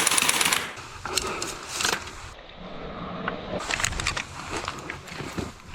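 Propane-powered MP5 airsoft gun firing a rapid burst of clattering shots that stops about half a second in, followed by scattered single clicks and knocks.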